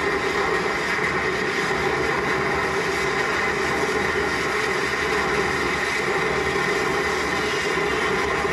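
Continuous roar and hiss of massed fireworks rockets in a cordà, played back over a hall's loudspeakers. The sound is steady and even, with no single bangs standing out.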